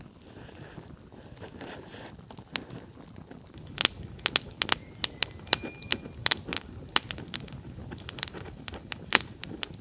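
Freshly lit campfire of dry wood and fatwood crackling, with sharp, irregular pops that come thicker after the first few seconds.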